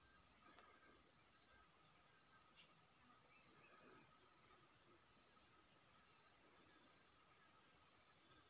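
Faint, steady insect chorus, with several high trilling pitches held throughout.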